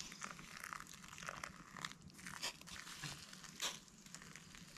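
Just-boiled water poured from a double-walled stainless steel water bottle onto dry rolled oats in a metal bowl, with faint scattered crackling and rustling.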